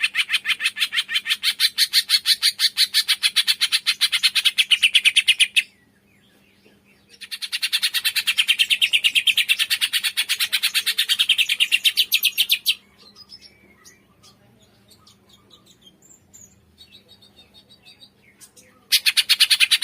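Cungkok songbird giving a fast, even run of sharp repeated chirps, several notes a second, in long bouts. The bouts stop about five and a half seconds in, start again from about seven to thirteen seconds, and resume near the end, with faint scattered chirps in the quieter stretch between.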